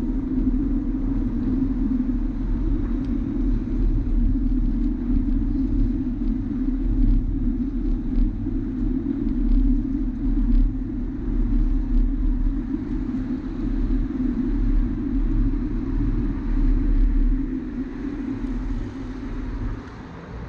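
Steady rumble of wind and tyre noise on a camera riding along a paved bike lane by bicycle, with a few faint clicks. The rumble eases off over the last few seconds.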